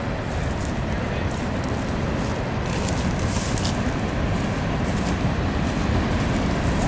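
Wind buffeting the microphone as a steady low rumble, with dry grass and brush rustling and crunching underfoot as the camera holder walks.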